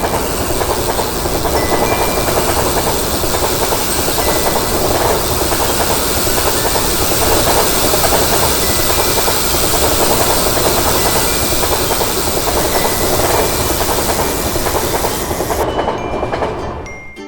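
A train passing through a level crossing: a steady, loud rush of wheel and rail noise with a hiss, fading away near the end.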